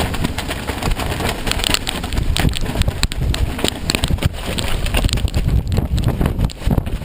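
Loud, gusty hurricane wind, buffeting the microphone in irregular blasts.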